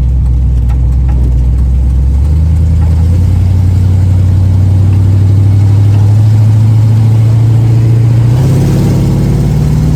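Small-block Chevy 350 V8 pulling hard under throttle, its engine note stepping up about two seconds in and climbing steadily, then easing off near the end. The header exhaust leak that caused a ticking has been fixed on one side, and the engine now sounds definitely better.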